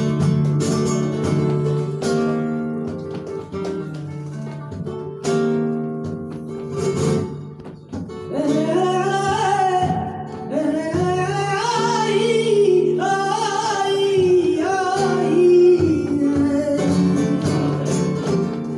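Flamenco guitar playing bulerías in plucked and strummed chords. About eight seconds in, a male cantaor's voice enters over it, singing long lines that bend up and down in pitch, then drops out near the end while the guitar carries on.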